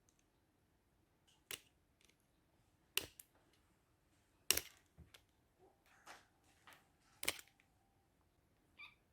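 Sharp plastic clicks and snaps as the plastic housing of a Samsung Galaxy Note 3 Neo is pried loose, its retaining clips letting go one by one. There are four louder snaps about a second and a half apart, with softer clicks between.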